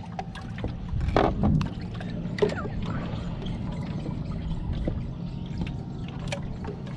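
Water trickling and splashing in a boat's livewell of live greenbacks, with scattered light knocks and clicks and a steady low rumble underneath.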